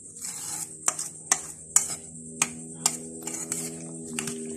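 Metal spoon stirring chopped raw fish and vegetables in a stainless steel bowl, clinking sharply against the bowl about five times. A steady held tone sounds underneath from about a second in.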